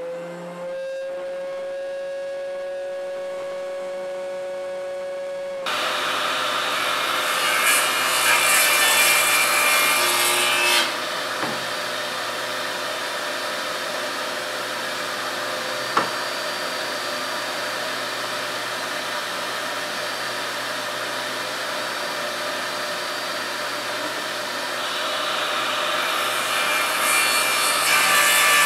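Electric miter saw motor running at a steady whine, then power-sawing through wood from about six seconds in. The harsher, louder cutting noise swells around eight to ten seconds and again near the end, with one sharp click in the middle.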